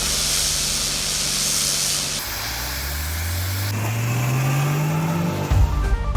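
Hissing high-pressure water spray from a pressure washer, over a steady low hum. About two seconds in, a low hum rises steadily in pitch for about three seconds, and music with plucked notes comes in near the end.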